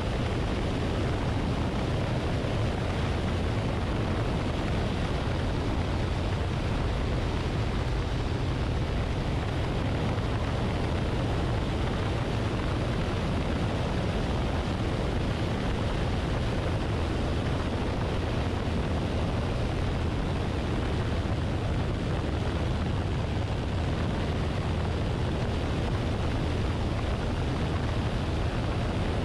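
Luscombe light aircraft in flight: a steady drone of engine and propeller mixed with wind rushing over the wing-mounted camera, heaviest in the low end and unchanging throughout.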